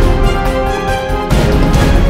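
Background music with a steady beat and held chords.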